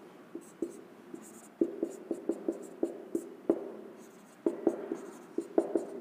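Whiteboard marker squeaking and tapping against the board as words are written, in quick runs of short strokes with brief pauses between them.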